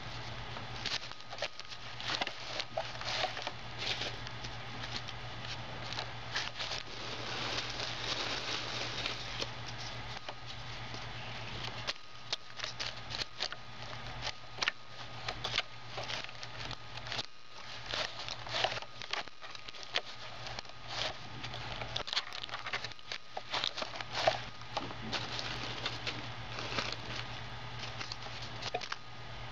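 Paper and plastic wrappers crinkling and crackling as they are crushed in a Lego-brick compactor, with irregular clicks and snaps of the plastic bricks and mechanism.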